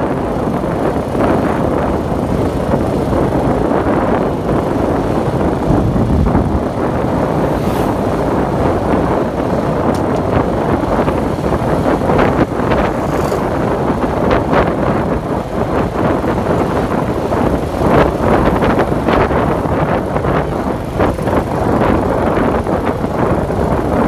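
Wind buffeting the microphone in steady gusts over the rumble of the moving vehicle it is riding on.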